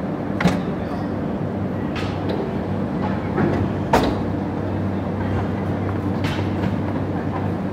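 Vertical rotor aluminium die casting machine running with a steady hum, broken by four sharp metallic knocks about two seconds apart as the die and ram move. The loudest knock comes about four seconds in.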